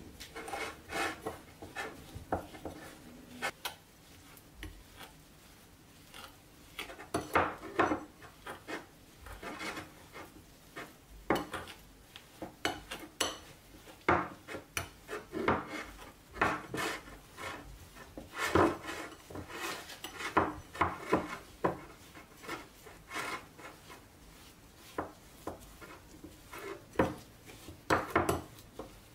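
Metal spoon scraping and clinking against a ceramic bowl in irregular strokes, stirring a thick paste of soft butter, sugar and cinnamon. There is a short lull about four seconds in.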